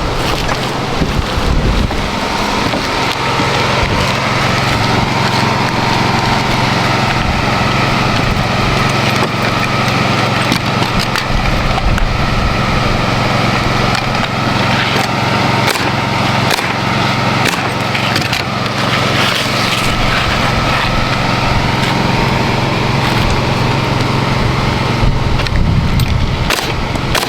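Pneumatic roofing nailer firing nails into asphalt shingles, sharp irregular shots, over the steady hum of a running motor.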